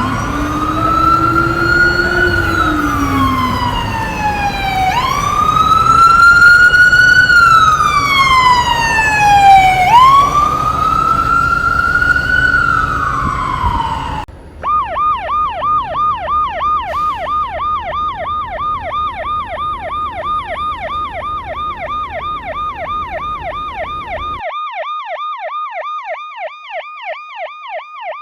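Ambulance siren in a slow wail, rising and falling about every five seconds over road noise. About halfway it changes to a fast yelp of roughly four to five sweeps a second.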